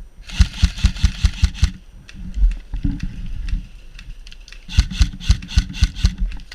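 Two bursts of airsoft electric rifle fire from a KWA KM4, each a rapid mechanical clatter lasting about a second and a half, the second starting about three seconds after the first ends.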